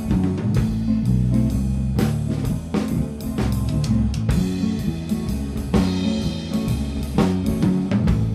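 Instrumental band playing: guitar, bass guitar and drum kit in a rough live mix, with steady drum hits under held bass notes.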